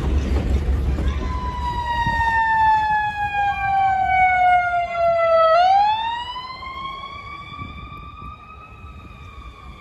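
A siren wailing: one long, slow fall in pitch that turns and climbs back up, then fades near the end. A low vehicle rumble comes first.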